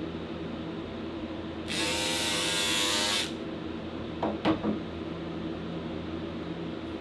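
Utility knife slicing through woven fiberglass tape: a raspy buzz lasting about a second and a half, over a steady low hum. A few light knocks follow a little after.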